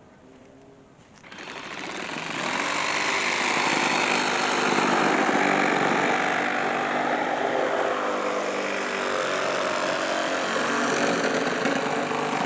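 A small engine-driven machine comes up loud about a second in and keeps running steadily.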